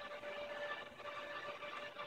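Cordless electric screwdriver running slowly with a faint, steady whine as it backs a screw out of a laptop's bottom panel.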